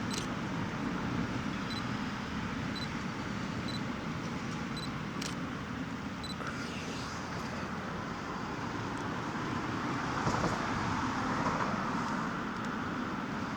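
A camera shutter firing a few times, sharp single clicks over a steady outdoor rumble.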